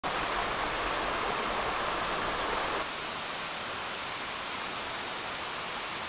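Mountain stream rushing, a steady water noise that drops abruptly to a slightly quieter, softer rush about three seconds in.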